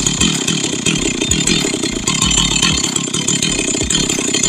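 Two-stroke chainsaw engine running.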